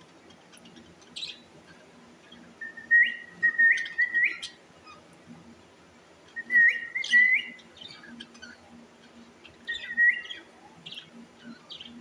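Caged budgerigars and cockatiels calling: three louder bursts of whistled chirps, each a held note broken by quick rising sweeps, a few seconds apart, with softer scattered chirps between.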